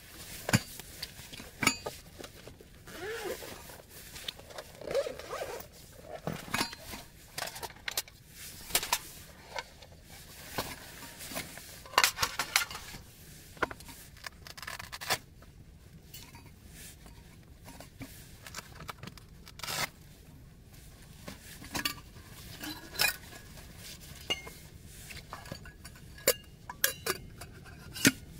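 Camping gear being handled: a zipper, with stainless-steel containers and cookware clinking, knocking and scraping in irregular, scattered clicks.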